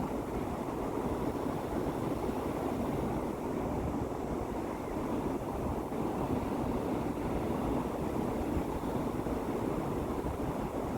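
Sea waves: a steady rumbling wash of surf, even in level with no single break standing out.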